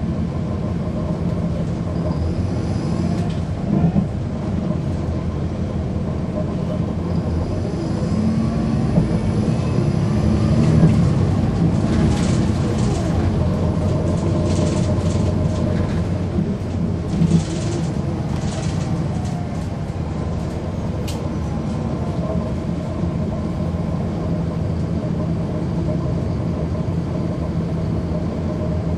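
Heard from inside a 2009 NABI 416.15 transit bus, its Cummins ISL9 inline-six diesel and ZF Ecomat 6HP594 automatic transmission run steadily under way. The engine note rises and falls through the middle, with short clattering knocks.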